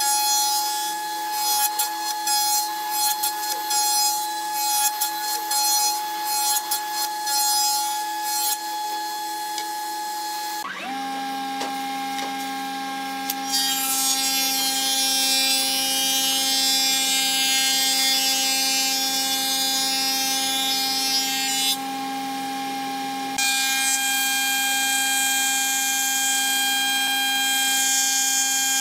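A Taiyo jointer's cutterhead runs with a steady whine while a board is pushed across it, the cut coming as a rapid, uneven rasp. About ten seconds in, the sound changes to a Marunaka thickness planer running with its own steady whine, with two long stretches of cutting noise as boards feed through it.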